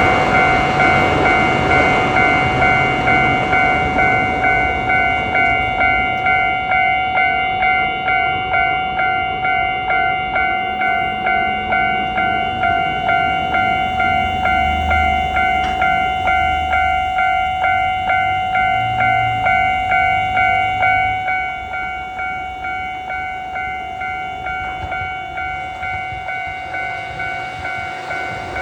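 Japanese railway level-crossing warning bell ringing, a fast, even, repeated 'kan-kan' chime. It gets somewhat quieter about three quarters of the way through.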